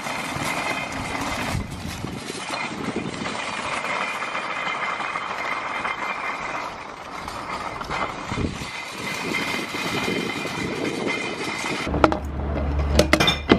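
Wheels rolling over paving stones: a steady rattling rumble from a pushed shopping trolley. Near the end there are a few sharp glass clinks as a bottle is fed into a glass recycling bank.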